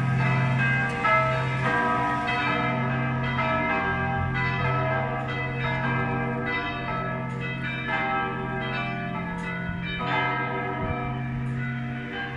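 Several church bells of St. Gerhard's Roman Catholic church ringing together in a peal, with strokes overlapping and fresh strikes every second or so over a steady deep hum from the largest bell.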